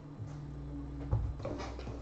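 Hands handling a stack of trading cards and a cardboard hobby box on a tabletop: a sharp knock about a second in, then a few light clicks and shuffles.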